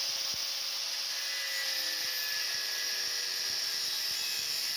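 Angle grinder cutting metal on a bicycle frame: a steady, high-pitched grinding whine with a faint lower hum that sinks slightly in pitch as the disc bites.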